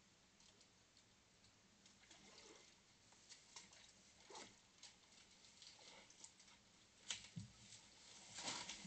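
Faint scattered rustling and light knocks of black bears rummaging among garden plants and pots, with a low thump about seven seconds in and a louder rustle near the end.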